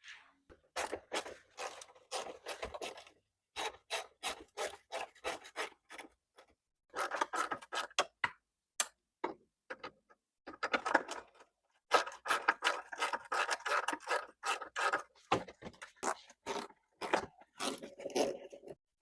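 Hand ratchet with an 8 mm socket clicking in quick bursts of strokes, loosening the bolts that hold an under-engine panel tray.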